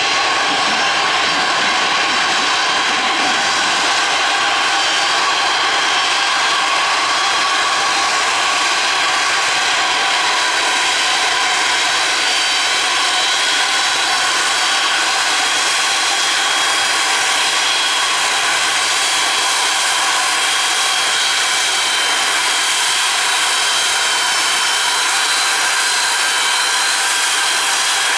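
Antonov An-124's four Progress D-18T turbofan engines at taxi power as the aircraft taxis close by: a steady, loud rushing hiss with several high whining tones held over it.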